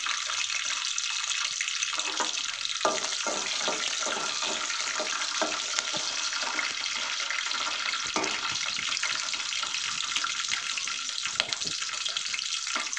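Green chillies frying in hot oil in an aluminium pot: a steady sizzle with small crackles and pops. A metal spoon stirring in the pot adds a few sharp ticks.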